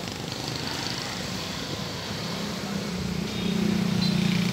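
Street traffic going by, cars and motorcycles. A motorcycle engine passes close and grows louder about three seconds in.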